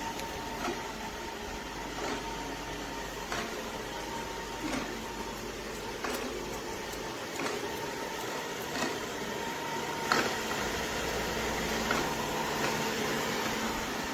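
Shark ION R75 robot vacuum running: a steady motor hum with a thin whine, and a light click about every second and a half.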